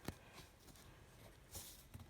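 Small sounds of drawing tools being handled against a near-silent room: a sharp click near the start, a softer tick, then a brief scratchy rustle and another click near the end.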